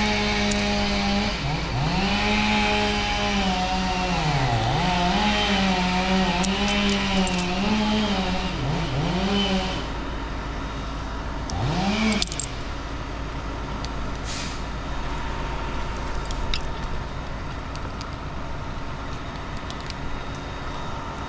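Chainsaw run at high throttle, its pitch dipping and recovering again and again as the chain bogs in the wood during a cut. About twelve seconds in it revs once more and drops back, leaving a low steady engine hum.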